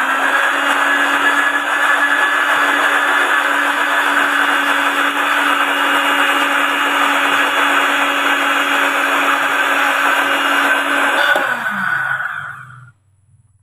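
Electric countertop blender running steadily as it blends mango with milk, then switched off about eleven seconds in, the motor whine falling in pitch as it spins down to a stop.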